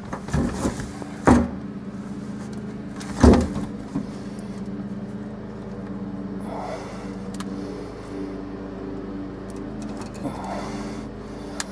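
Handling noise as electric shift wire connectors are pulled apart beside an engine block: a few sharp knocks, the loudest about three seconds in, over a steady low hum.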